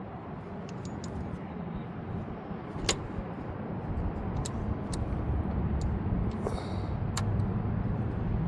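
Scattered short clicks and taps of parts and tools being handled in a Honda CR-V engine bay while a belt tensioner is fitted, over a low steady rumble.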